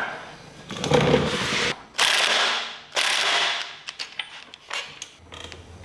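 Three bursts of mechanical ratcheting, each about a second long, then a few light clicks and taps, from hand-tool work on an outboard motor during assembly.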